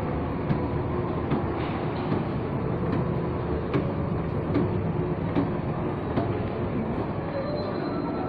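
Steady indoor ambient rumble of a large shopping mall, with footsteps about every 0.8 s, a little under one a second.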